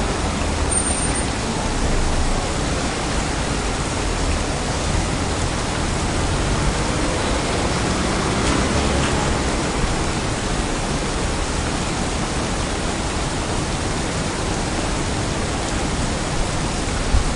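Steady, even rushing hiss of rain, with a low rumble underneath. A brief high squeak sounds about a second in.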